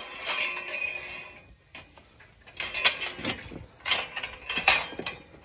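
Galvanised steel sheep hurdles of a race clanking and rattling as ewes jostle against them: a ringing clatter at first, then several sharp metal knocks.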